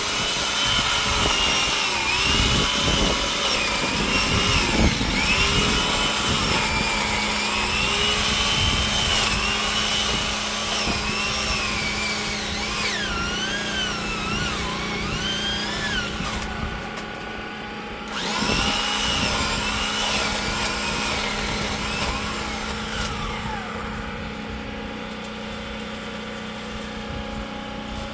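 Motorized pole saw running and cutting through juniper branches, its whine wavering up and down as the chain bites and frees. It eases off briefly about two-thirds of the way through, then cuts again.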